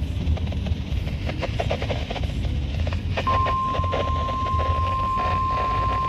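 Radio static crackling over low car road rumble, then about three seconds in a steady single-pitch alert tone starts and holds: the warning alarm tone of a NOAA Weather Radio broadcast signalling a severe thunderstorm warning.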